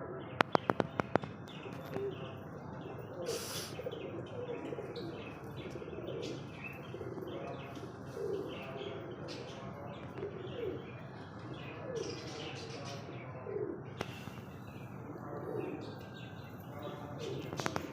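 Aviary birds calling: a low call repeated about once a second, with higher chirps among it. A quick run of sharp clicks comes about half a second in.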